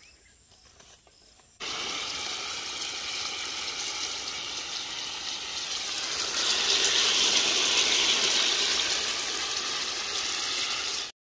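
Chicken pieces simmering and sizzling in their juices in a steel pot over a wood fire: a steady hiss that starts suddenly after a quiet second or so, grows louder in the middle and cuts off just before the end.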